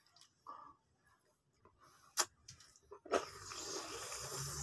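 Mouth sounds from eating a raw tomato: a few soft wet clicks, then from about three seconds in a steady hiss of air through pursed lips.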